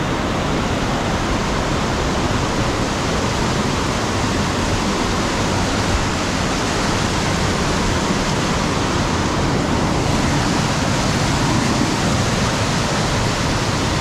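Steady, loud rush of a tall single-drop waterfall, an even wash of falling water with no breaks.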